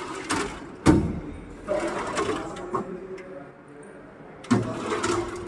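Metal tool-cabinet drawers sliding on their runners and knocking shut, with hand tools clattering inside; sharp knocks about a second in and again near the end, with rattling in between.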